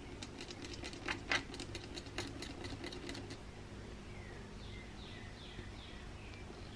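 Faint clicks and small taps of a screwdriver tip against a shaft bearing and the plastic motor housing of an electric chainsaw as grease is worked into the bearing. The clicks come thickly over the first three seconds or so, with a few louder ones, then stop.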